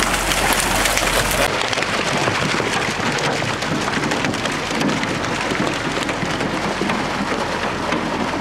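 Water gushing out of a fish-stocking tank down an aluminium chute and splashing into the lake as catfish slide out with it: a steady rushing and splashing noise.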